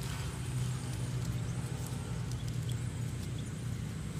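A steady low motor hum, with a few faint clicks and rustles of dry leaves.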